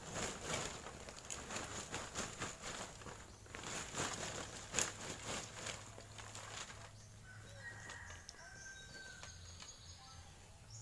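Dry sticks and twigs clattering and rustling as they are tipped and shaken out of a woven plastic sack onto bare ground: a dense run of snaps and clicks that dies down after about seven seconds.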